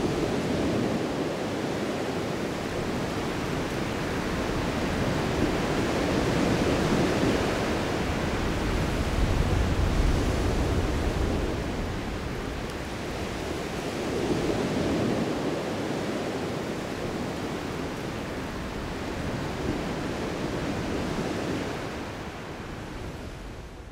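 Ocean surf: a steady rushing wash of waves that swells and eases every several seconds, then fades out near the end.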